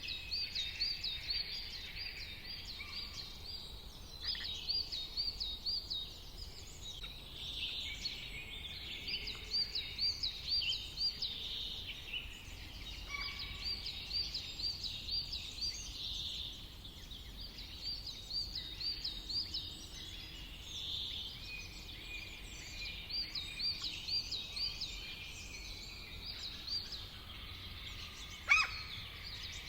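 Birds singing in a natural soundscape; one bird repeats a quick run of rising-falling notes in bouts every few seconds among other calls. A steady low hum runs underneath, and one sharp click is heard near the end.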